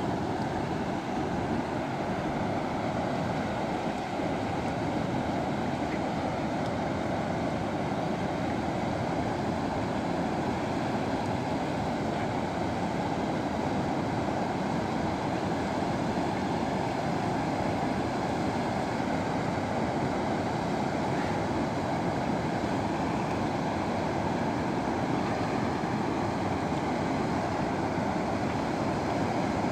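Steady rush of river water pouring over a low rocky weir.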